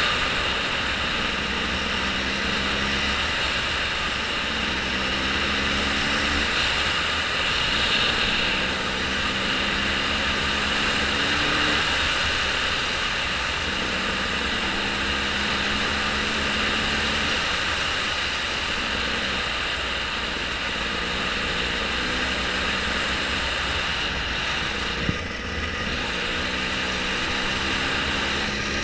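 Steady rushing noise of a moving vehicle with a low engine hum that shifts in pitch every few seconds; one short knock near the end.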